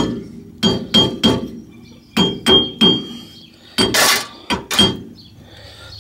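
A hammer striking a car's rear hub and bearing assembly, about ten sharp metal-on-metal blows in irregular groups, some with a short ring, knocking the unbolted hub loose; the heaviest blow falls about four seconds in.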